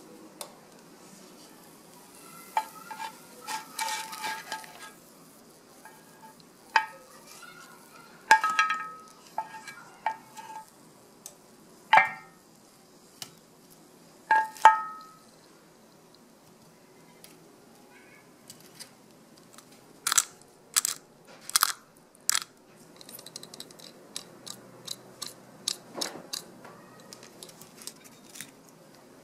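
Kitchenware being handled on ceramic plates: a scattering of single clinks that ring briefly in the first half, then sharper crisp clicks and quick small ticks in the second half as a pan and wooden tongs work over the dishes.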